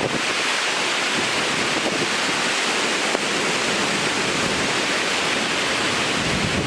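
Tropical-storm wind and water: a steady, even rushing hiss without distinct gusts or breaking waves.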